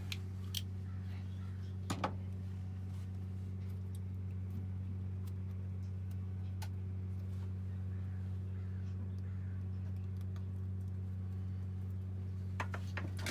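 A steady low hum runs throughout, with a few short, light clicks and taps from small wire connectors and tools being handled.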